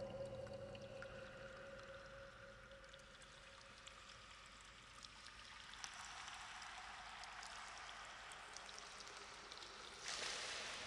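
A quiet stretch in an ambient music track: the drone fades away, leaving a faint trickling-water hiss with scattered small drips. The noise grows a little about six seconds in, and a hiss swells near the end.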